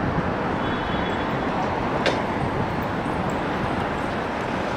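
City street traffic noise: a steady rumble and hiss from passing vehicles, with one sharp click about two seconds in.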